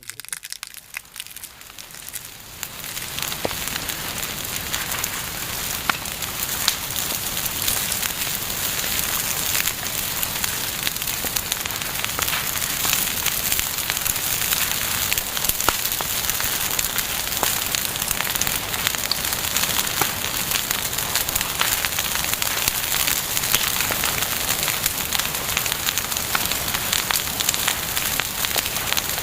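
Bonfire burning, a steady crackle of wood thick with sharp snaps and pops, fading in over the first couple of seconds.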